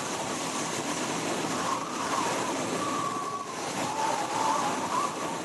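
Strong wind blowing steadily, a rushing gust with a faint wavering whistle.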